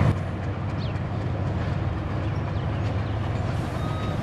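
Steady low rumble of a diesel locomotive's engine running in the distance as the train approaches, with a few faint bird chirps.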